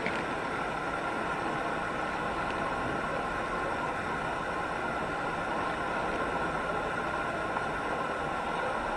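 Steady outdoor traffic noise, an even wash of vehicle and street sound with no single event standing out.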